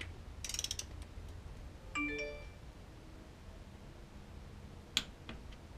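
Click-type torque wrench on an S54 connecting-rod bolt: its ratchet clicks rapidly for a moment, a brief metallic ring follows about two seconds in, and a single sharp click comes near the end, as the wrench breaks over at its 30 Nm setting.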